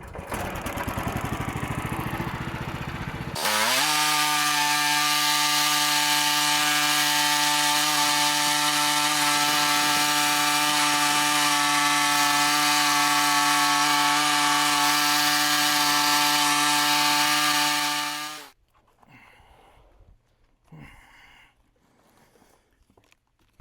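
Engine of a manual bandsaw sawmill running: rough for about three seconds, then a loud, steady high-speed run as the blade makes the opening cut into a poplar log. It stops abruptly about 18 seconds in.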